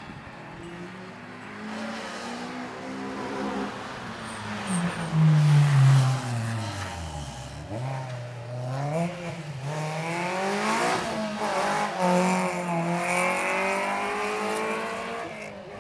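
A track-day car's engine working hard as it approaches, loudest about five to six seconds in. The revs drop steeply as it slows for a corner, then climb again in several rising pulls as it accelerates away, and the sound fades near the end.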